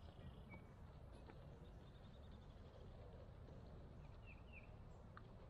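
Near silence: a faint low background rumble, with a soft bird trill about two seconds in and two short bird chirps a little past four seconds.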